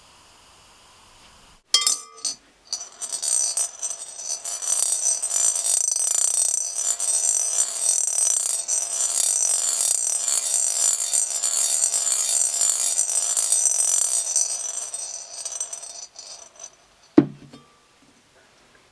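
Toy gumball machine running: its electronic sound plays while the gumballs clatter and swirl around inside for about thirteen seconds, then stops. A single knock follows near the end.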